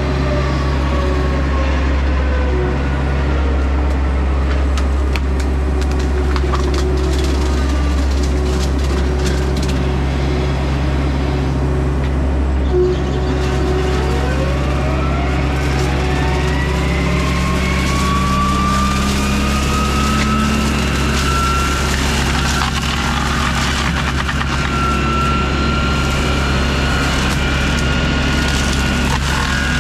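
John Deere 60G compact excavator's diesel engine running steadily at working revs, with the whine of its Baumalight hydraulic brush mulcher head. The whine sinks at first, then climbs steadily through the middle and holds high, with scattered sharp cracks.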